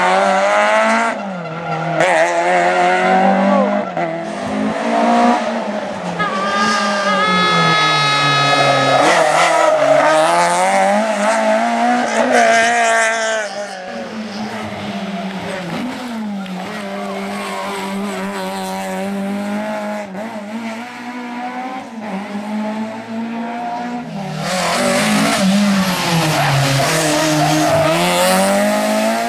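Rally car engines revving hard and dropping off again through tight hairpins, the pitch rising and falling with each gear change and lift. There is a quieter stretch in the middle, then a car is loud again as it passes close near the end.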